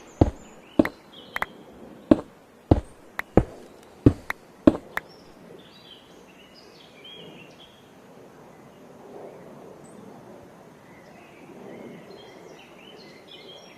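Outdoor ambience with birds chirping. In the first five seconds there are about ten sharp knocks or bangs at irregular intervals, and they are the loudest sound.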